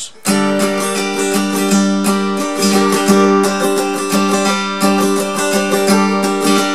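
Acoustic guitar with a capo at the fifth fret, strummed in quick, even strokes that start a moment in and carry on steadily. It is the song's intro progression of D minor, D sus 4 and D sus 2 chords.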